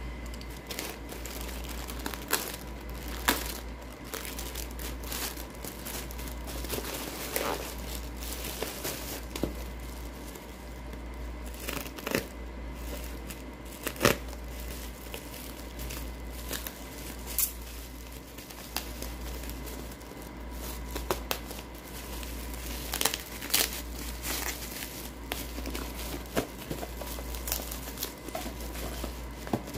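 Black plastic parcel bag and bubble wrap crinkling and crackling as a package is handled and pulled open, with irregular sharp crackles throughout. A steady low hum runs underneath.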